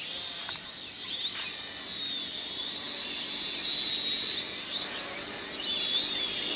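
F69 toy quadcopter's small motors and propellers whining at a high pitch in flight, the pitch rising and falling as the drone speeds up and turns.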